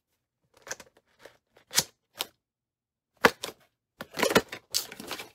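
Small white cardboard box handled and opened by hand: a series of short scrapes, rustles and sharp clicks from the cardboard, with a denser run of them near the end.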